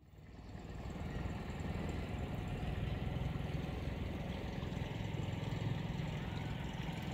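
Outboard motor on a small open boat running steadily at low speed, fading in over the first second.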